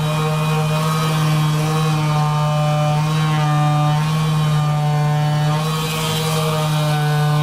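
Background music: a steady low drone under slow, held synth-like notes that change pitch every second or two.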